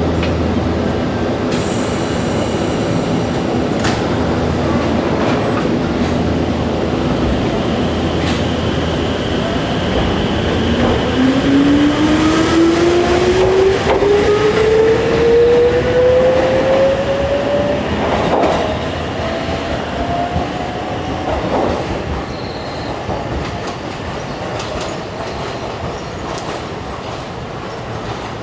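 Running noise inside a Wakayama Electric Railway 2270-series electric train car as it picks up speed. From about ten seconds in, a whine climbs steadily in pitch for about ten seconds, then fades out. A few knocks from the running gear come through.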